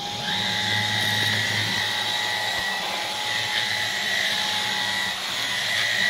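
Dyson V11 cordless stick vacuum switched on in Eco mode, its motor coming up at once to a steady high whine with a few clear tones over a low hum, sucking through the extension wand and nozzle.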